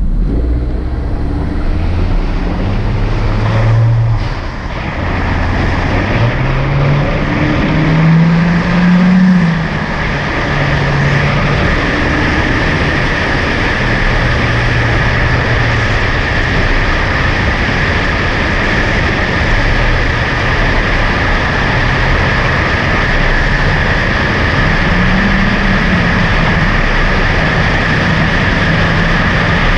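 Honda Civic Hatchback Sport's turbocharged four-cylinder exhaust, heard at the tailpipe while the car drives. The revs climb, drop and climb again through upshifts in the first ten seconds, then settle into a steady cruising drone under heavy road and wind noise.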